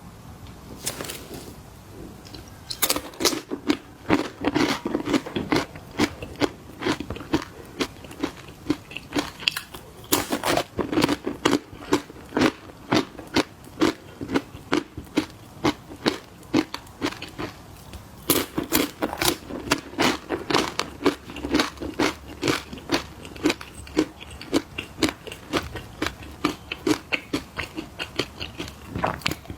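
Crunchy snacks being bitten and chewed: sharp crunches in a steady rhythm of about two a second, with fresh, denser bites starting about three seconds in, about ten seconds in and about eighteen seconds in.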